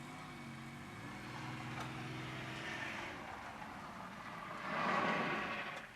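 A minivan driving: a steady engine hum for the first few seconds, then a swell of road noise that grows louder about five seconds in and drops away near the end.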